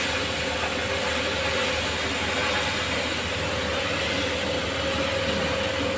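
A steady rushing noise with a low hum underneath and a faint steady tone, unchanging throughout.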